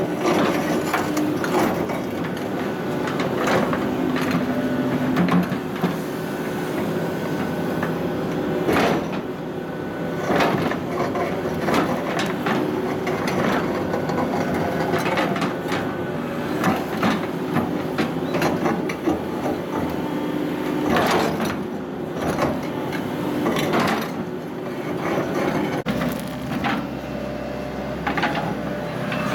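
Hydraulic excavator running under load as its ripper tooth digs into and prises apart blasted granite. Irregular knocks and grinding scrapes come as rock blocks shift and strike one another over the engine drone.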